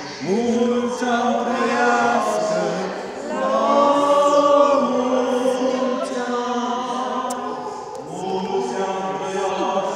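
Several voices singing an Orthodox church chant together, with long held notes that slide from one pitch to the next.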